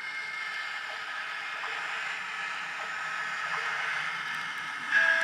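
A CT Elektronik SL76 DCC sound decoder in a Graham Farish N gauge Class 70 model locomotive plays a YouChoos diesel engine soundtrack through a tiny microcube speaker: a thin, steady engine drone as the model runs. Near the end, a loud horn blast of several held pitches cuts in suddenly.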